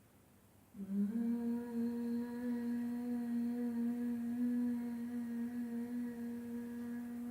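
A single long hummed note on a closed-mouth "mmm", starting about a second in with a slight upward slide, then held steady at one pitch.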